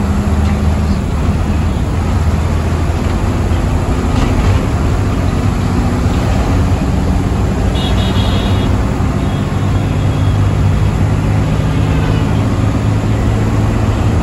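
Hino AK1J bus's diesel engine running steadily under way, with road noise, heard inside the cabin. A short high beep sounds about eight seconds in.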